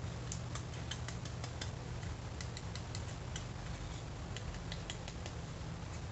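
Light, irregular clicks and ticks of a plastic model car interior tub being handled and shaken to spread carpet powder over wet flat paint, over a steady low hum.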